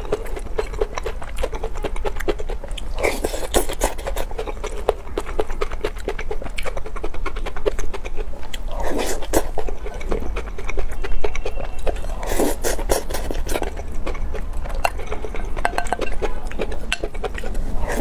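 Close-up eating sounds of spicy noodles: wet chewing and slurping with many small clicks, and a wooden spoon scraping a ceramic bowl. Louder spells come about three, nine and twelve seconds in, over a low steady hum.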